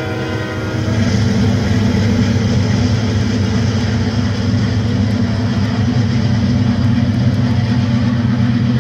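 O-gauge model freight train with a diesel locomotive running close past, giving a steady low diesel engine rumble. A diesel horn note dies away about a second in.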